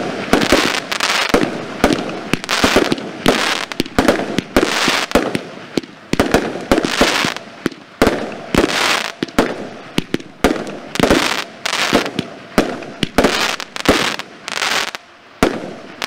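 Firestar Neon Knights 16-shot consumer firework cake firing its shots in quick succession: a steady run of sharp bangs from tubes launching and stars bursting, each trailing off in a brief crackling hiss.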